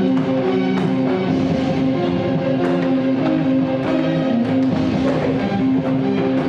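Instrumental rock music with guitar and a drum kit: steady held chords over a regular drum beat.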